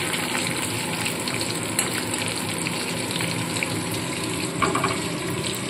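Boiled eggs frying in hot mustard oil in a kadai: a steady sizzle, with a couple of faint clicks about two seconds in and near the end.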